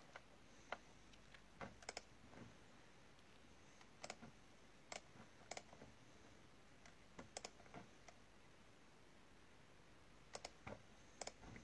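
Faint irregular clicks, singly and in small clusters, over near-silent room tone.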